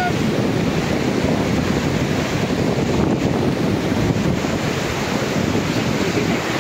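Rushing whitewater of a fast river around an inflatable raft, a steady hiss and churn, with wind buffeting the microphone.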